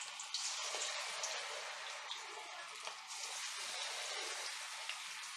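Rava bonda batter balls deep-frying in hot oil in a steel kadai: a steady sizzle with small crackles and pops, swelling a little about three seconds in as more batter goes in.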